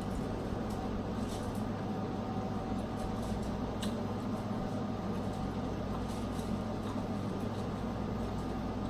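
Steady low background hum with three faint sharp clicks spread through it.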